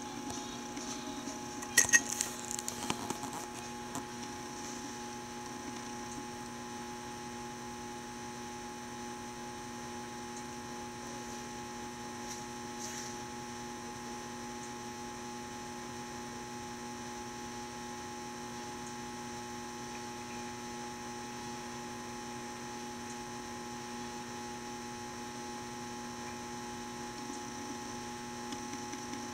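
Steady electrical hum with no other sound, a few sharp clicks sounding about two seconds in.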